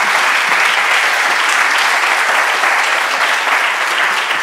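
Auditorium audience applauding steadily, a dense clapping that begins to fade near the end.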